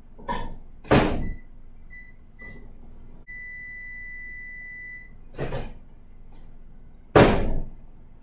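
Microwave oven melting butter in short bursts: its door thuds shut, the keypad beeps three times, then one long beep sounds for nearly two seconds. More door thuds follow, the loudest near the end.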